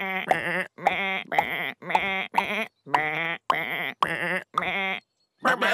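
Cartoon sheep bleating one after another, about ten short wavering bleats in quick succession, one for each sheep that appears.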